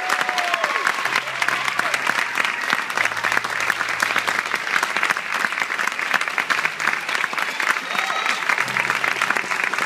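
Theatre audience applauding steadily, a dense clatter of many hands clapping, with a few voices calling out in the crowd.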